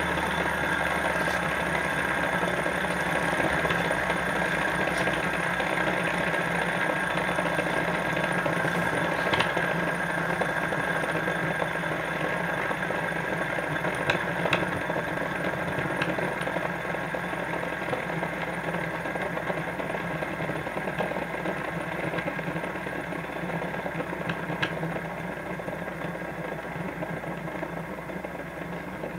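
Metal two-lobe fidget spinner whirring steadily on its bearing as it spins down, slowly getting quieter, with a few faint clicks along the way.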